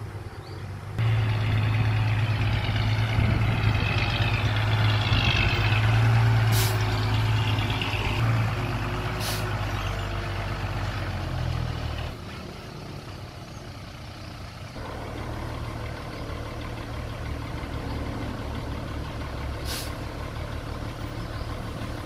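Heavy diesel earthmoving machinery running under load. The low engine hum is loud for the first half and drops in level about halfway through. A high wavering squeal comes a few seconds in, and there are three sharp metallic clanks.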